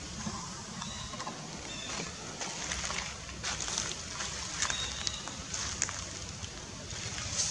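Outdoor forest ambience: a steady low rumble with scattered soft clicks and a few short high chirps.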